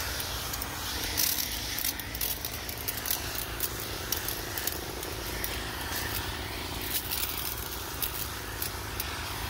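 Garden sprayer's wand misting cucumber leaves: a steady hiss with many small ticks and crackles, over a steady low rumble.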